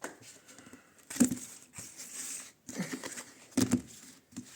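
A deck of oracle cards being shuffled with one hand: irregular rustling and several soft knocks as the cards slide and tap together.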